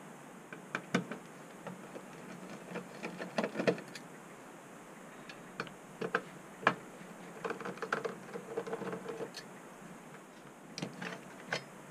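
Light scattered clicks and taps from a disassembled floppy drive's metal chassis being handled and picked at with a small tool, with a short run of faint scraping a little past halfway.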